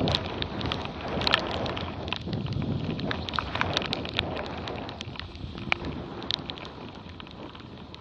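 Wind and rushing water around a Dart 16 catamaran sailing fast in a strong breeze, with many sharp crackling ticks of water drops striking the camera. The noise eases in the second half.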